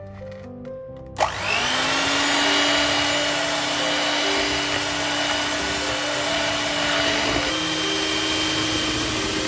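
Electric mixer switched on about a second in, whining up to speed and then running steadily as it beats eggs with sugar until creamy; its pitch steps slightly higher near the end.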